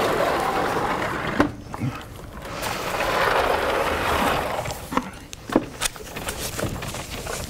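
Vertically sliding chalkboard panels being moved on their tracks: two long sliding runs, one at the start lasting about a second and a half and another from about two and a half to five seconds in, followed by a few light knocks.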